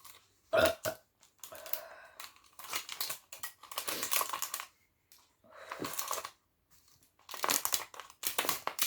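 A woman burping and gulping down carbonated apple soda (Appy Fizz) to finish the bottle, in about seven short separate bursts, the loudest about half a second in.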